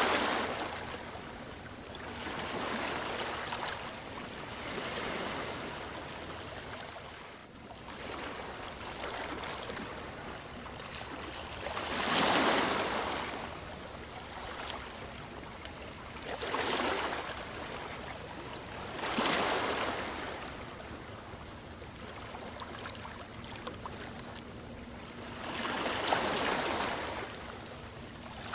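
Sea waves washing in and drawing back, each one swelling up and fading over a few seconds, with a few larger breakers standing out.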